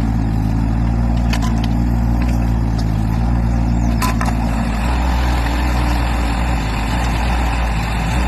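A heavy engine running steadily at a constant speed, with a few faint clicks over it.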